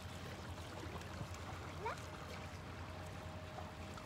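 Calm sea water lapping gently among shallow rocks at the shoreline, a soft steady wash. A brief rising call sounds about two seconds in, and a faint steady hum comes in around halfway.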